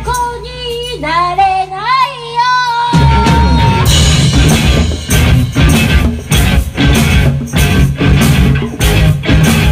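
Rock band playing loud: for about the first three seconds a voice sings a wavering line over a sustained low note, ending on a held high note, then the full band comes back in with guitar and a steady drum beat.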